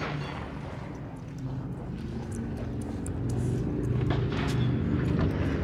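Car engine running with a steady low hum that grows louder about a second and a half in, with a couple of faint sharp cracks about four seconds in.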